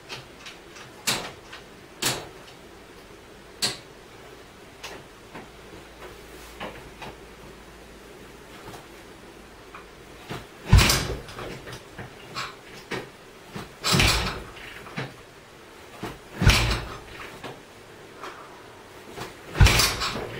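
BSA C15 250 cc single-cylinder engine being kicked over with the kick-start four times, each kick a heavy thump of about half a second, with the engine not catching between kicks. A few light clicks and knocks come in the first few seconds.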